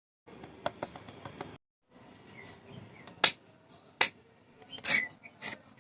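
Handling noise of unboxed items: light rustling with a few sharp clicks and taps, the loudest two about a second apart in the second half, in two short clips with a brief cut between them.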